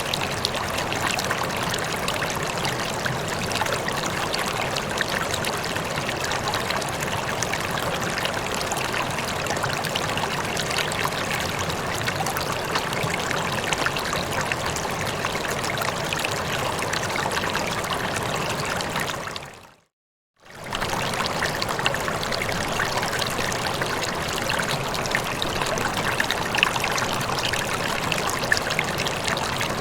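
Rippling water trickling and flowing steadily, like a small stream. About two-thirds of the way through it fades out to silence for about a second, then comes straight back.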